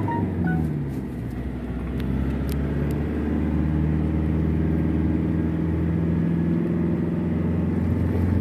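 Car engine and tyre noise heard from inside the cabin while driving: a steady low hum whose engine note dips briefly near the start and then holds steady.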